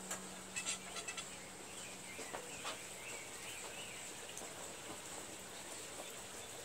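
Outdoor ambience: birds chirping in the trees over a steady high insect drone. A few light clicks and knocks come in the first second or so.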